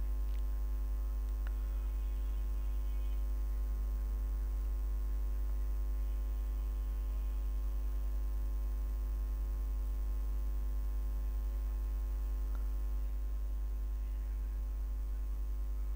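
Steady electrical mains hum, with a few faint clicks.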